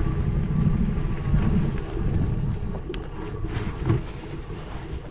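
Wind buffeting the microphone as a steady low rumble, with a few short knocks or rattles about three to four seconds in.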